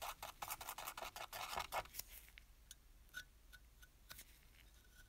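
Small spatula scraping grey filler putty: a quick run of rasping scrapes for about two seconds, then sparse light ticks and scrapes as the putty is spread onto a tin toy funnel.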